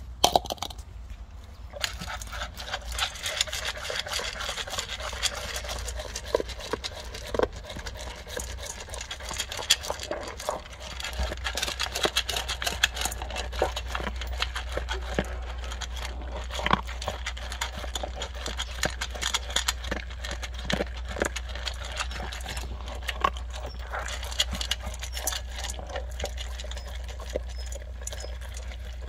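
Labrador retriever eating dry kibble from a stainless steel bowl: quick, continuous crunching and chewing, with small clicks of kibble against the metal. A steady low hum runs underneath.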